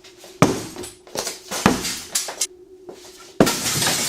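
Several sharp impacts on glass with clinking, then a longer crash of breaking glass about three and a half seconds in.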